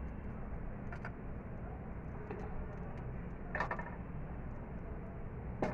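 A spoon stirring and dropping thick yogurt raita in a bowl, with a few light clicks and taps as it knocks the bowl: a cluster about halfway through and one near the end, over a steady low hum.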